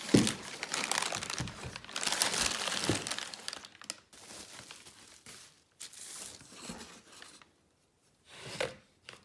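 Packaging crinkling and tearing as a new water pump is unwrapped. The rustling is loudest in the first few seconds, then comes in quieter bursts, with a short louder rustle near the end.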